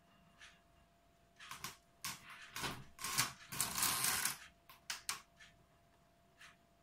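Folding accordion door rattling and clattering in quick bursts as a cat paws and pushes it open from the floor. The clatter starts about a second and a half in, is densest around three to four seconds, and stops about five seconds in.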